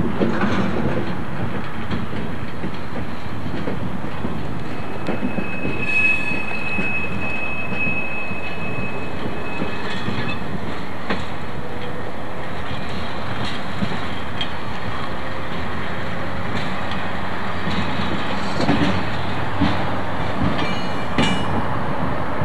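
Freight wagon rolling on yard track: wheels clicking over the rail joints, with a high steady wheel squeal for about four seconds starting some six seconds in, and a few knocks near the end.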